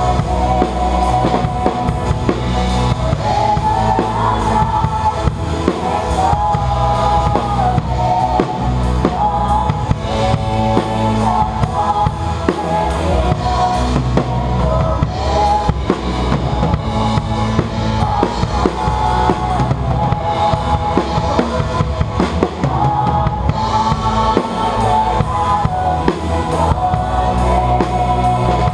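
Acoustic drum kit played live with a band: kick drum, snare and cymbals keep a steady beat under a melody line.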